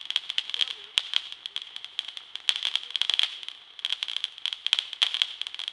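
Crackling firework: a dense, irregular run of rapid sharp snaps over a steady high hiss, thinning briefly a little past the middle.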